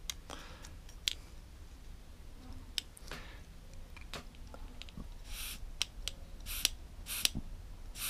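Small metal clicks and taps of carburettor parts being handled and fitted, then several short hissy puffs of air as the carburettor is blown through to test whether the float needle now shuts off the fuel inlet.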